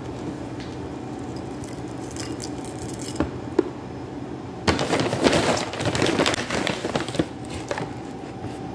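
Dry granola crackling and rustling as it is handled and added to a bowl of yogurt: a few light clicks, then a dense crackling rustle starting about five seconds in and lasting about two and a half seconds, over a faint steady hum.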